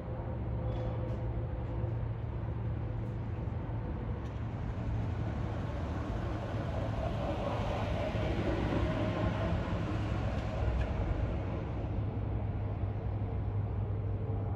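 Cessna turboprop passing overhead: a steady low propeller drone with a rushing noise that builds to a peak about halfway through and eases off, with a thin turbine whine over it in the middle.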